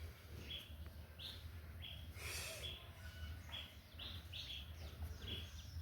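A small bird chirping repeatedly in short, slightly falling chirps, about two a second, with a brief rustle about two seconds in.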